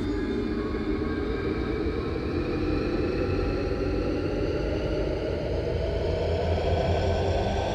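A steady low rumble that slowly rises in pitch.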